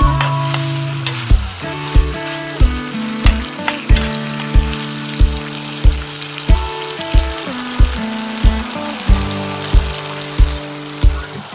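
Background music with a steady beat, about one and a half thumps a second, over the sizzle of meat, tomatoes and onions frying in a stainless steel pan as they are stirred.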